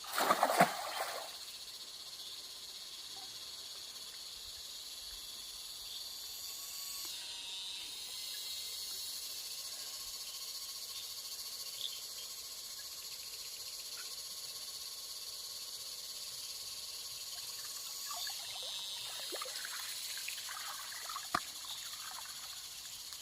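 Steady insect chorus, a continuous high-pitched trill. About seven seconds in a thinner steady tone joins it and fades out near the eighteenth second. There is a brief louder noise at the very start.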